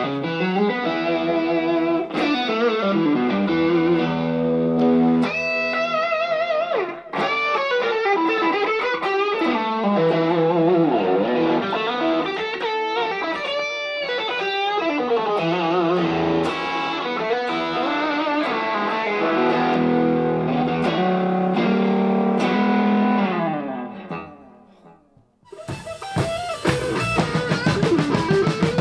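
Electric guitar, a Stratocaster-style guitar through a TC Electronic DC30 Preamp pedal, playing lead lines with bends, slides and vibrato. The guitar fades out about 24 seconds in, and from about 26 seconds a full rock band plays: drums, bass and electric guitar.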